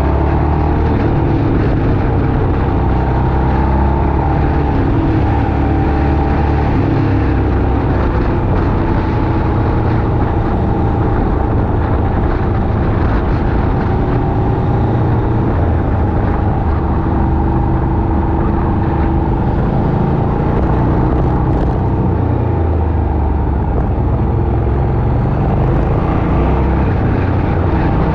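Motorcycle engine running at road speed, its hum drifting gently up and down with the throttle, under a steady low rush of wind on the microphone.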